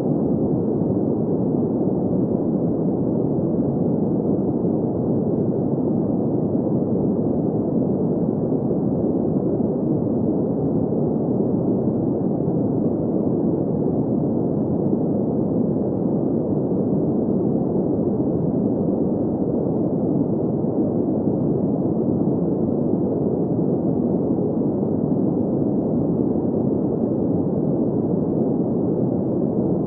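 Steady, even noise with no pitch or rhythm, full in the low-middle range and dull with no hiss on top: a synthesized green-noise sleep track.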